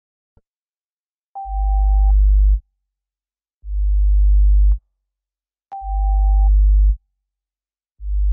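Live electronic music: a deep synthesized bass tone pulsing about every two seconds, each pulse lasting about a second. A short, steady, higher beep-like tone sounds over the first and third pulses.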